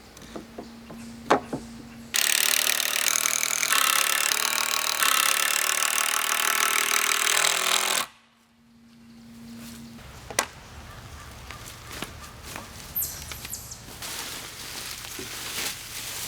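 Old Makita cordless impact driver hammering a screw into pressure-treated lumber for about six seconds, starting about two seconds in and stopping suddenly. A few sharp knocks of wood come before and after it.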